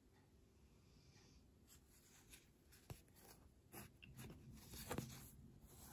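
Near silence at first. From about two seconds in come faint rustles and a few light ticks, which grow toward the end: skeins of embroidery floss being handled.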